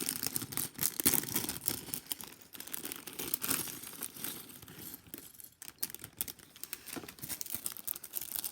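Lego set packaging being torn open, with crinkling and rustling in irregular bursts and a short pause about halfway through.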